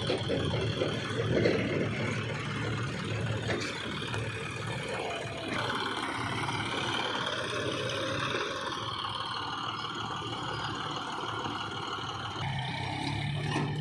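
Diesel engine of a JCB 3DX backhoe loader running steadily while working, with a high whine that shifts about halfway through and again near the end.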